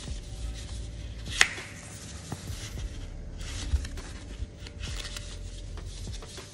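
Hands handling packaging: rustling and rubbing of paper and box with scattered light clicks, and one sharp click about a second and a half in.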